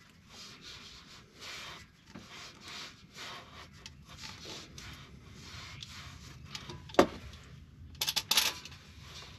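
Oil filter wrench being worked back and forth on a Ford 6.7L Powerstroke's spin-on oil filter to break it loose, a rasping stroke about twice a second. A sharp clank comes about seven seconds in, and a quick rattle of metal clanks follows a second later.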